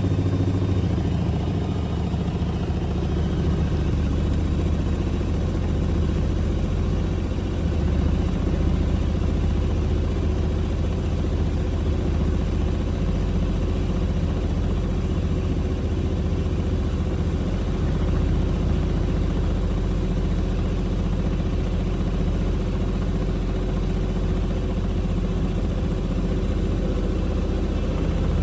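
Hoover H-WASH 700 washing machine in an interim spin with a very unbalanced load: a steady low rumble of the drum and motor, with no clear knocks.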